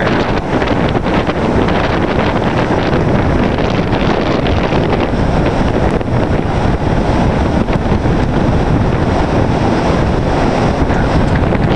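Strong wind buffeting the microphone in a steady, loud rumble, with the wash of breaking ocean surf beneath it.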